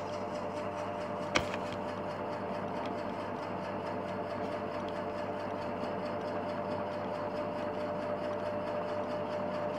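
Steady mechanical hum of room background noise, with a single sharp click about a second and a half in.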